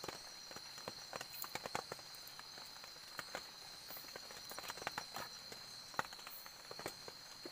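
A steady high-pitched insect drone, with scattered irregular soft clicks and taps over it, the sharpest about six seconds in.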